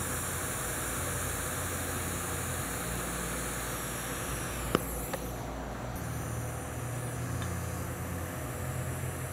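TIG welding arc on a carbon steel pipe socket fitting: a steady hiss over a low hum as the joint is tacked. A single sharp click sounds about four and a half seconds in.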